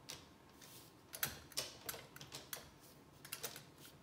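Irregular light clicks and taps of an O gauge model steam locomotive being handled and set down onto three-rail track, its wheels and body knocking against the rails, the sharpest click about a second in.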